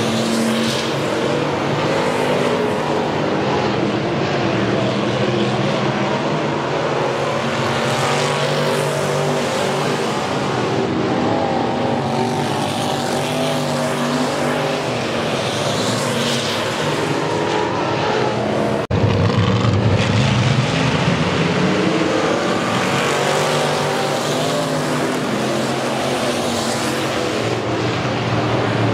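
Dirt-track race car engines running laps together, with cars swelling up and fading away as they pass close by several times. About two-thirds of the way in, the sound breaks off abruptly and comes back louder in the low end.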